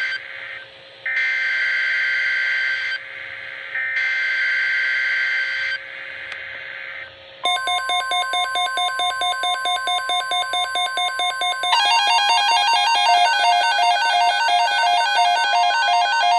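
Emergency Alert System SAME header: screeching digital data bursts, the end of the first and two more, each about two seconds long. Then the steady 1050 Hz NOAA Weather Radio warning alarm tone sounds under a layer of pulsing electronic beeps, about three a second, that turns busier partway through.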